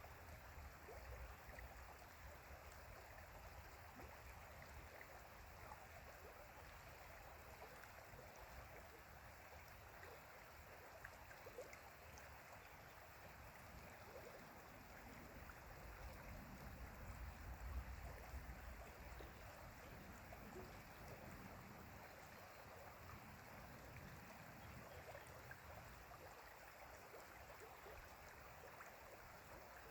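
Stream flowing: a faint, steady rush of running water, with a low rumble swelling up for a few seconds in the middle.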